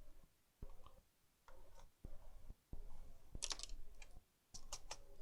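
Faint scattered clicks and taps of the Acer E1-571 laptop's plastic parts being handled while the keyboard's ribbon cable is fitted into its connector, with a quick run of sharper clicks about three and a half seconds in.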